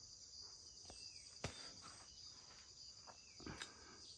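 Faint, steady high-pitched chorus of insects such as crickets, with one sharp click about a second and a half in and a soft knock or two near the end.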